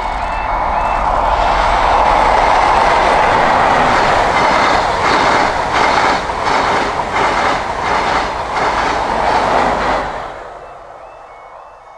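The Midland Pullman, a diesel High Speed Train set with Class 43 power cars, approaches and passes at speed. The rush of the train builds, then carries a rhythmic clickety-clack of wheels over the rail at about two beats a second. It falls away quickly about ten seconds in as the train clears.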